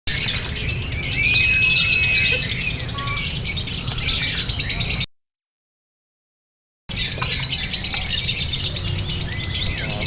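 Caged lovebirds chattering in a dense, high-pitched stream of chirps and trills, with one longer whistle a little over a second in, over a low background rumble. The sound cuts out completely about five seconds in for nearly two seconds.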